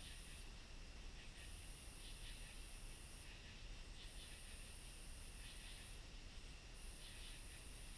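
Faint night insect song: a high buzz in regular bursts about two seconds long with short gaps, over a steadier, lower trill.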